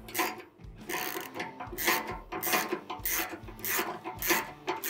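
Hand ratchet being worked back and forth in quick strokes, each back-stroke a rasping burst of pawl clicks, as bolts with lock nuts are snugged up part way.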